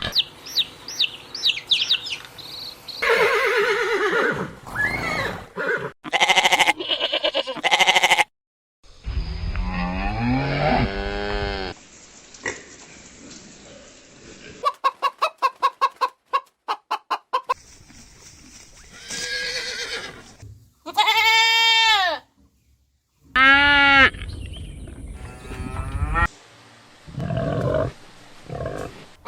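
A series of farm-animal calls from short clips cut one after another: loud bleats and cries whose pitch rises and falls, one call broken into rapid pulses of about four a second, each clip cut off abruptly.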